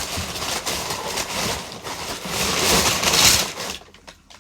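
Packaging being torn open and crinkled by hand as a parcel is unwrapped, a continuous rustling crackle that is loudest just past the middle and stops almost a second before the end.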